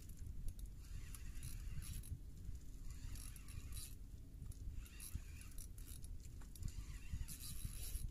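Jigging reel cranked in short bursts, about every one and a half to two seconds, as a hooked crimson jobfish is pumped up on a bent rod, over a steady low rumble.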